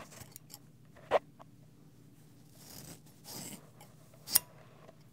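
Scissors snipping hair close to a binaural microphone: two sharp snips about three seconds apart, with a soft rustling and a few light clicks between them.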